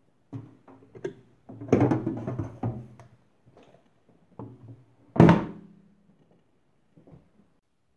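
Handling of a bread machine's metal bread pan and risen dough: a series of knocks and thunks with some ringing as the pan is lifted out, then the machine's lid shutting with a sharp bang about five seconds in, the loudest hit.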